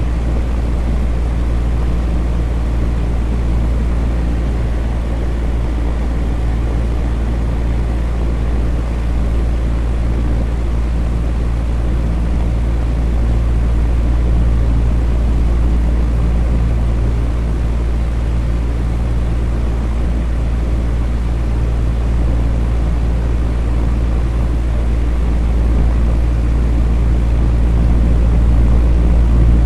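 Electric fan running steadily: a low hum under an even rushing of air, unchanging throughout.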